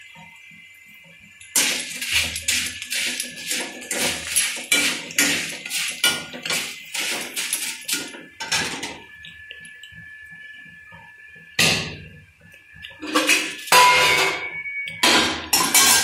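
Wire-mesh skimmer stirring and scraping crisp fried corn flakes in an iron kadai: a rapid run of metal clinks and scrapes, several a second. After a short lull about halfway, metal pans and utensils clatter again.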